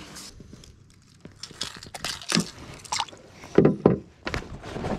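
Water splashing and sloshing beside a boat's hull as a Murray cod is held in the river by the lip and kicks, with a few louder splashes in the second half.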